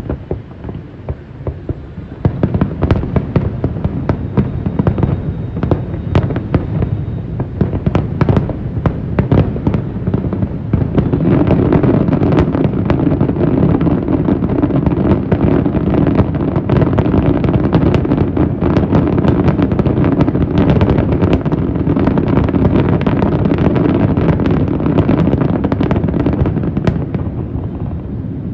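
Aerial fireworks going off in a rapid barrage of bangs and crackling. The barrage picks up about two seconds in and thickens again around eleven seconds in, becoming dense and unbroken.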